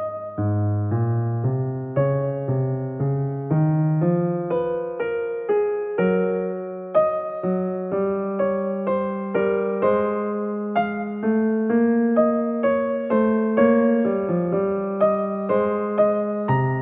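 Gentle solo piano music: single melody notes struck one after another at an even, unhurried pace over held low bass notes.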